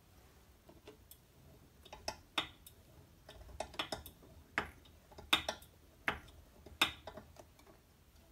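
A series of sharp, irregular clicks and light knocks, about nine of them starting about two seconds in, from the pitot-static test set being worked by hand as it draws the altimeter up to a higher test altitude.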